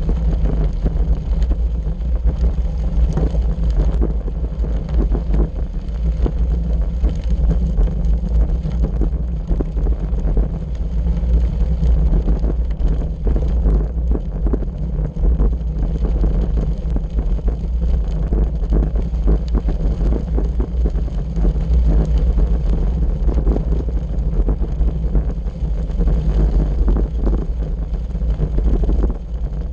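Wind noise on the microphone of a bike-mounted camera, over the rumble of a bicycle's tyres on a gravel road with constant small rattles and knocks.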